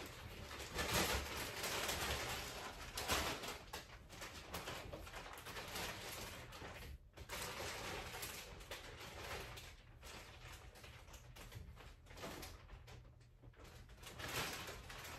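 Handling noise as yarn skeins are moved and stacked on shelves: irregular rustling and crackling with sharp knocks and bumps, the loudest about a second and three seconds in.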